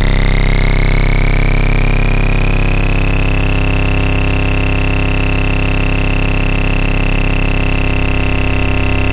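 Synthesized oscilloscope-music signal: sawtooth, sine and square waves mixed into a steady buzzing drone of many pitches, the stereo audio that draws a field of mushroom shapes on an XY oscilloscope. A higher tone in it glides upward during the first three seconds, then holds steady.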